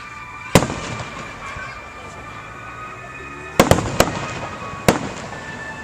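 Fireworks going off with sharp bangs and short echoing tails: one about half a second in, a quick cluster of three near the four-second mark, and one more just before five seconds.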